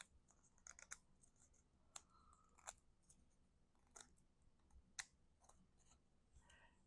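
Faint, scattered crisp ticks and light rustles of paper cardstock pieces being folded and handled by hand.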